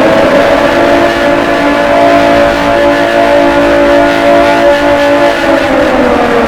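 Warning siren wailing: a loud held note made of several pitches together, which begins to slide down in pitch about five and a half seconds in.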